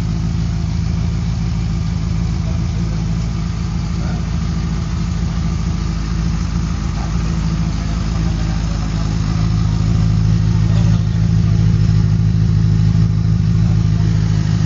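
Benelli 600i's 600 cc inline four-cylinder engine idling steadily through its stock exhaust, getting a little louder about two-thirds of the way through.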